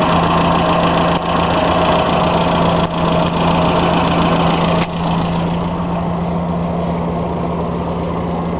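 Land Rover Series III engine idling steadily, heard close up in the open engine bay. About five seconds in, the sound turns duller while the low, even idle carries on unchanged.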